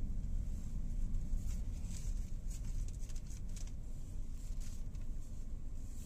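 Scattered raindrops tapping on the car's windshield and roof, heard from inside the cabin over the steady low rumble of the car moving slowly.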